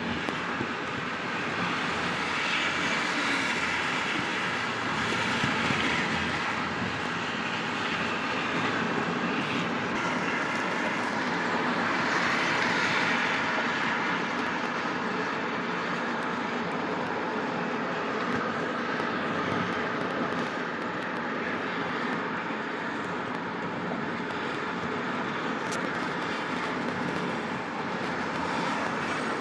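Steady tyre and wind noise of a car driving at freeway speed, swelling briefly a few seconds in and again near the middle.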